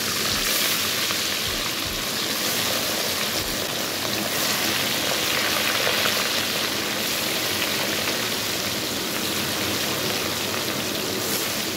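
Masala-coated Catla fish pieces frying in smoking-hot mustard oil in a kadhai: a steady sizzle with fine crackling, kept up as more pieces go into the oil one by one.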